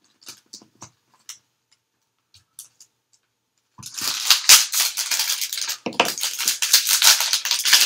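A new plastic Cyclone Boys speed cube being handled, with a few separate clicks, then turned rapidly from about four seconds in, its layers clattering in a fast run of clicks. The cube is still oily with factory lubricant.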